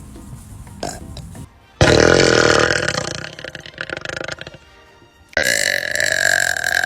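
Young women belching loudly: one long burp about two seconds in that trails off, then a second long, steadily pitched burp starting past five seconds.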